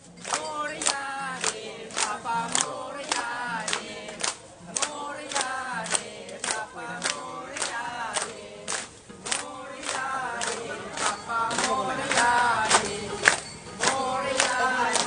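A crowd clapping in time, about two claps a second, to a sung devotional mantra song for Lord Ganesh.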